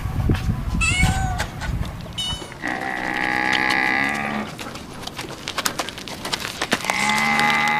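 Farm animal calls: two long, steady, drawn-out calls, one starting about two and a half seconds in and another near the end, after a short falling call about a second in.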